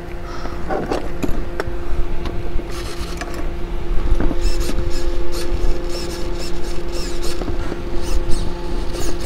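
Servos on a radio-controlled Forza helicopter being moved and loaded by hand: brief servo-motor whines and many small clicks and rattles from the linkages, over a steady servo hum. The servos sound healthy, with no stripped or chipped gears.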